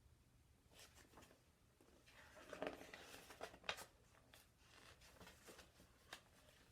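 Near silence in a small room, with faint rustling and a few soft clicks, most of them about halfway through.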